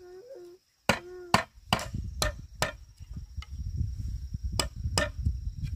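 Sharp blows of a tool chopping or hammering bamboo, about eight strikes at uneven intervals starting about a second in, with a steady high-pitched hum behind them.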